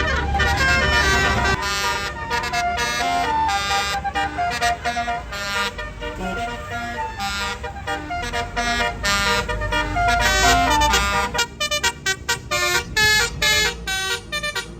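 Tour bus basuri musical horn playing a tune as a quick run of loud horn notes stepping up and down in pitch, over a low engine rumble. About eleven seconds in, the notes turn short and choppy.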